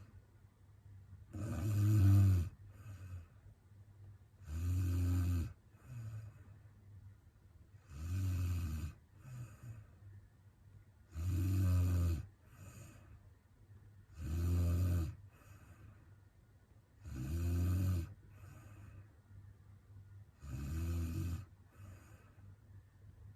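A sleeping woman snoring steadily, one snore about every three seconds, seven in all, each followed by a fainter, shorter sound.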